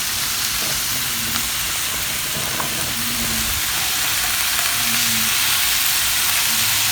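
Chopped onion, celery, carrot and bell pepper sizzling as they saute in a frying pan of bacon and beef drippings: a steady frying hiss that grows a little louder about halfway through.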